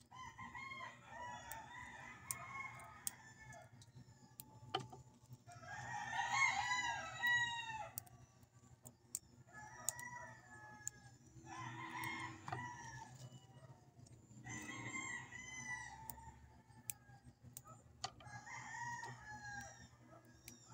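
Roosters crowing again and again, about six crows one after another, with a few sharp clicks between them.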